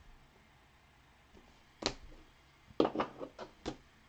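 Trading cards being handled and tapped down on a table: one sharp tap about two seconds in, then four quicker taps in the last two seconds, with a quiet room between.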